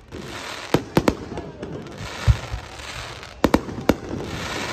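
Aerial fireworks bursting: about seven sharp bangs at irregular intervals, one deeper boom a little past two seconds in, over a steady crackling hiss.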